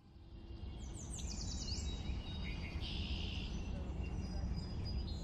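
Outdoor ambience: a steady low rumble of background noise with small birds chirping above it, including a quick run of falling chirps a little over a second in.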